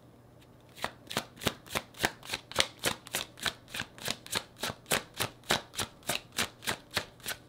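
A deck of tarot cards being shuffled overhand, the cards slapping together in a steady rhythm of about three strokes a second, starting about a second in.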